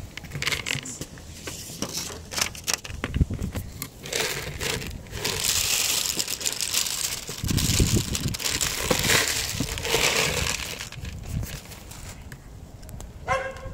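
Dry cat kibble shaken from a plastic container onto a plastic plate: a dense rattle of pellets hitting the plate for several seconds through the middle, with scattered clicks and handling knocks before it.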